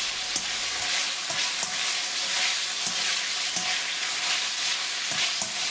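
Beef pieces in chili sauce sizzling steadily in hot oil in a wok while a spatula stirs them, with an occasional light tap or scrape of the spatula against the pan.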